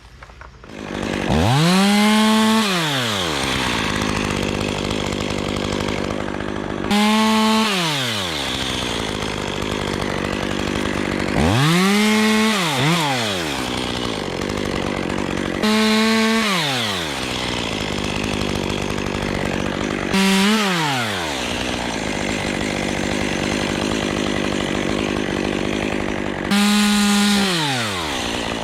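Chainsaw engine running and revved in six short bursts, each held high for a second or so and then falling back to a lower idle.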